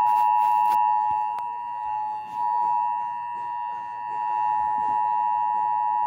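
Emergency Alert System attention signal: a steady two-tone alarm with no break, playing through a phone's speaker ahead of a tornado warning.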